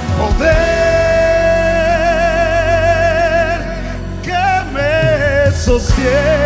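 Live Christian worship music: a singer holds long notes with a wavering vibrato over a steady accompaniment. The first note lasts about three seconds, then shorter phrases follow.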